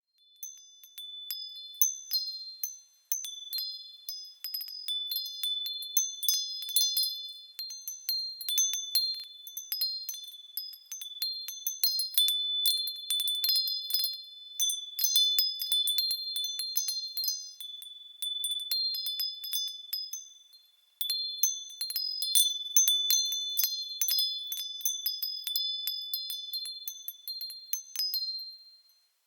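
Wind chimes tinkling in a breeze: irregular, overlapping strikes of several high ringing tones that fade after each hit. They go briefly quiet about twenty seconds in, then start again.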